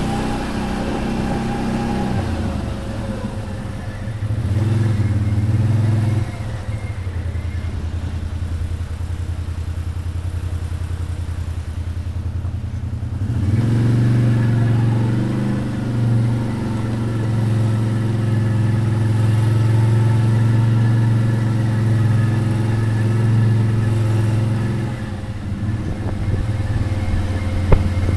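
Motor vehicle engine running while driving, its note growing louder about four seconds in and again about halfway through, with a sharp click near the end.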